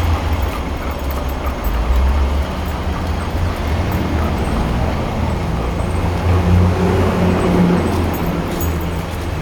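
Road traffic: a motor vehicle's engine running close by as a steady low rumble, its hum stronger between about two and eight seconds in.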